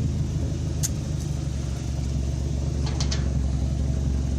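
Toyota truck engine idling steadily, its leaking exhaust header patched with exhaust wrap. A sharp click about a second in and a quick pair of clicks about three seconds in.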